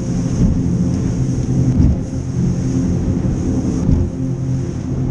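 Boat engine running steadily, a loud low hum with a rushing noise over it as the boat moves.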